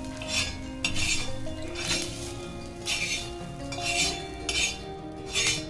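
A spatula scraping across an iron tawa in about seven short strokes roughly a second apart, lifting off roasted onion-and-coconut masala. Background music plays underneath.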